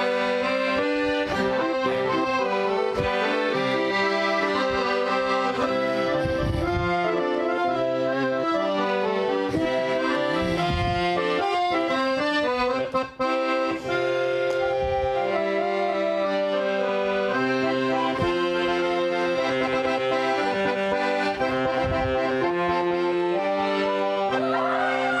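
Accordion playing a lively tune with held chords under a moving melody, with a momentary break about halfway through.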